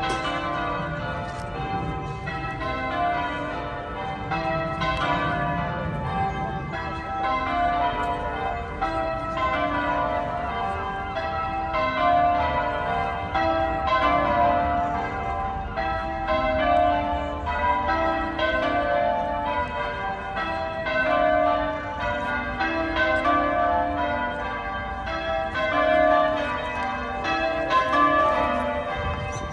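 St Patrick's Cathedral's tower bells being rung in changes, a steady, unbroken run of overlapping pitched strokes as the bells sound one after another in turn.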